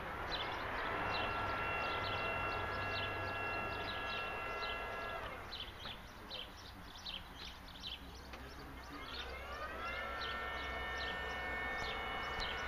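Battery-electric JLG E300AJP boom lift's hydraulic pump motor whining as the boom is moved. The whine rises in pitch and then holds steady for about five seconds before stopping, then rises again about nine seconds in and holds.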